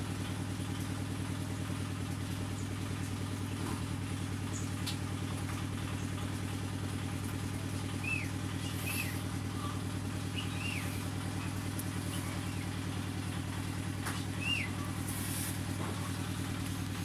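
A small engine running steadily, a low even drone that does not change. A few short high chirps sound over it.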